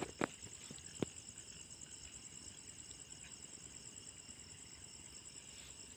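Crickets chirping steadily in a continuous high, pulsing trill, with two light knocks in the first second.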